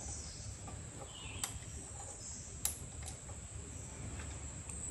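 A few light clicks of a screwdriver and small metal parts as the float bowl is worked off a small outboard motor's carburetor, over a steady background drone of crickets.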